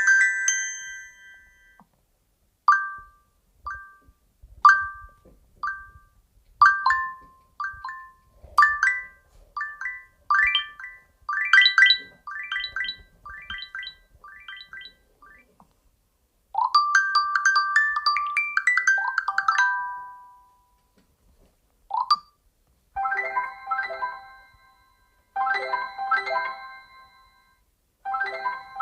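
Google Pixel 9 stock ringtones played one after another on the phone: short melodies of chime-like electronic notes with pauses between them. First a climbing run of quick notes, then a short phrase, then a figure repeated several times.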